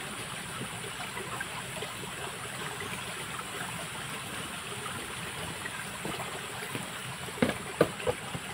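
Running stream water, a steady trickling rush, with a few short, sharp sounds near the end.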